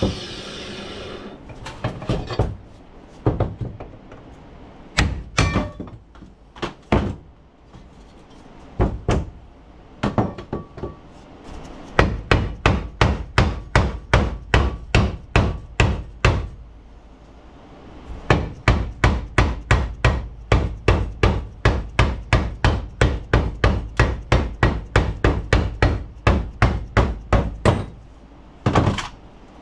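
Hammer blows on a chisel driven into the cut seam of an aluminum NP241C transfer case to split it apart: a handful of scattered strikes, then two long runs of quick, steady blows, about three a second, with a short pause between them.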